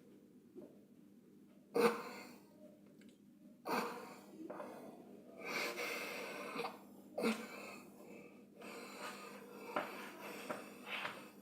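A man's breathing close to the microphone, with a few sharp, noisy breaths a couple of seconds apart that fade away after each one.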